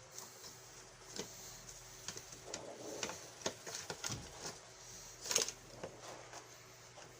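Irregular light clicks and taps of small plastic appliance parts being handled, with a sharper click about five seconds in.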